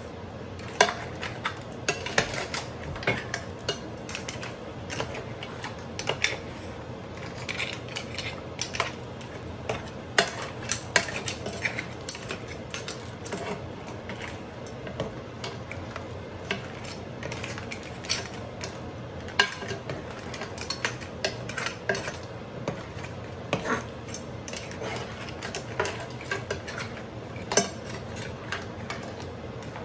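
A long-handled spoon stirring a pot full of snow crab, stone crab claws and shrimp, knocking and scraping against the pot and the shells in irregular clacks, over a steady low hum.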